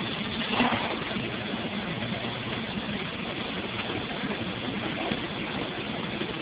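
Fire trucks' diesel engines running steadily: a continuous mechanical drone.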